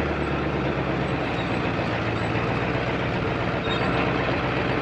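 Ford F350's 7.3 Powerstroke diesel engine running at crawling speed as the truck climbs a rough loose-rock trail, heard from outside the cab. A steady rushing noise lies over the low engine sound.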